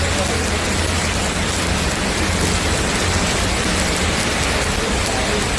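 Stick-welding arc crackling steadily as an E7018 electrode burns on a leaf spring, with a low steady hum underneath.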